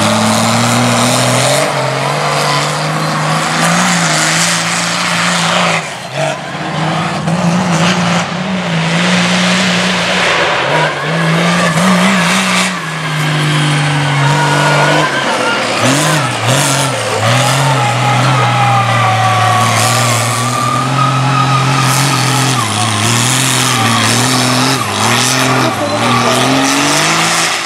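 Lifted mud truck's engine running hard, its pitch rising and falling again and again as the throttle is worked, with a thin wavering whine riding above it.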